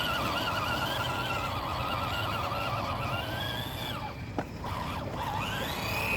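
Small RC crawler's electric motor and gearbox whining as it drives, the pitch wavering with the throttle. The whine drops away about four seconds in, then rises again near the end.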